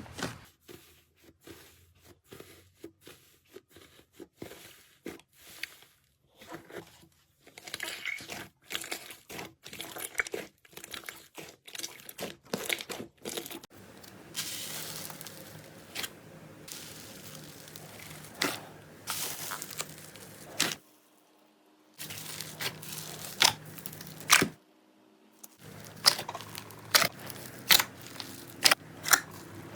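Slime being worked by hand, with a dense run of small crackles and pops. It gets rougher about halfway through, and sharper, louder pops come near the end.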